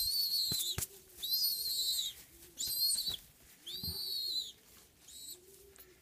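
A young pigeon (squab) gives five high, whistling begging squeaks, each under a second, spaced about a second apart, while it is being hand-fed and is still hungry.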